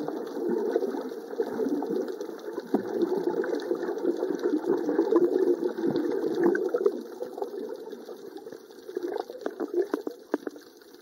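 Muffled underwater water noise picked up by a camera submerged while swimming: a dull, continuous rushing and sloshing with scattered crackling clicks, dropping quieter in the last few seconds.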